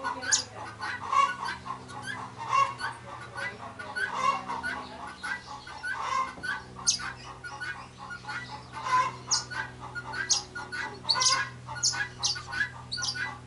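Chickens clucking over and over, with sharp high-pitched chirps mixed in and a steady low hum underneath.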